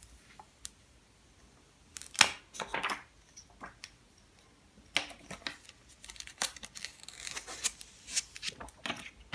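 Thin protective plastic film being peeled off a new iPhone 6s Plus, crinkling and crackling in short bursts. A few crackles come about two seconds in, and a denser run follows from about halfway through.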